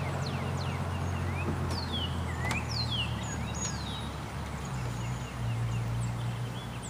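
1966 Ford Thunderbird's V8 idling steadily at a slightly fast idle, with a single click about two and a half seconds in as the driver's door is opened. Birds call over it with short, quick, falling whistled notes.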